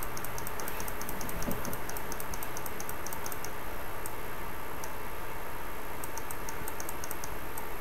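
Runs of light, quick clicks from working a computer, about six a second, in a burst at the start and another near the end, over a steady hiss.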